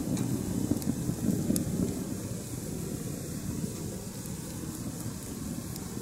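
Low, gusty rumble of wind on the microphone, with a few faint sharp crackles from a small wood fire burning in a metal stove.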